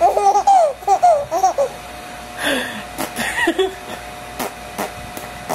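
Baby laughing in short bursts of giggles, a quick run of them through the first second and a half and a few more near the middle.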